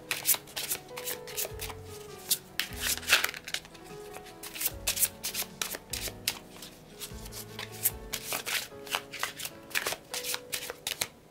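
A deck of oracle cards being shuffled by hand: a quick, uneven run of papery flicks and slaps. Soft background music plays under it.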